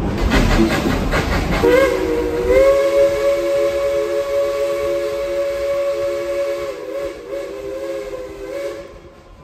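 Whistle of Baldwin steam locomotive No. 190 sounding one long chord-like blast of several tones at once for about seven seconds, wavering as it tails off. The moving train rumbles and hisses loudly just before it.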